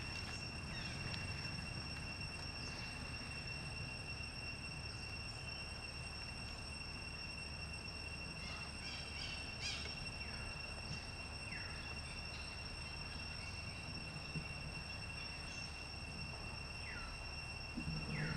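Steady high-pitched insect drone held on one note over outdoor background noise, with a few short falling chirps scattered through it.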